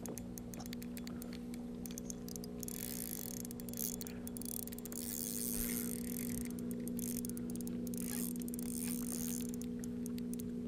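Steady hum of an electric trolling motor holding the boat in place on spot-lock. Patches of hiss come and go over it, with faint clicks.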